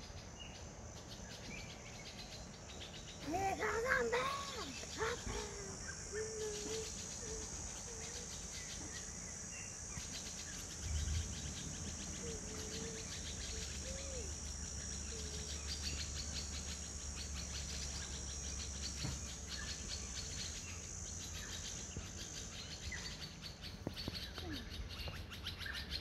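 Steady high-pitched insect chorus at dusk, with a few sliding animal calls about three to five seconds in and scattered faint chirps later. A low steady hum joins about eleven seconds in.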